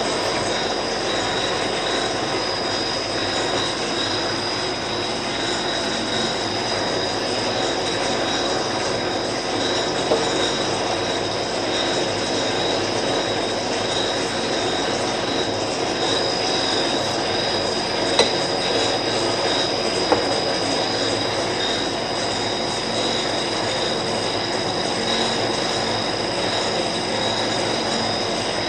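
Monarch lathe running with a steady mechanical noise and a constant high whine, with a few short sharp clicks in the second half.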